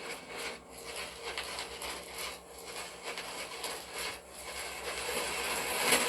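Record surface noise in the lead-in groove of a flexible Lexan disc: steady hiss with irregular crackles, growing louder near the end just before the music begins.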